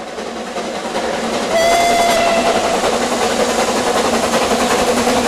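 Narrow-gauge steam locomotive working towards the listener, its exhaust growing louder. About a second and a half in, it gives one whistle blast of about a second.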